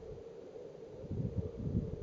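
Wind buffeting the microphone, gusting much harder about a second in, over a steady low hum.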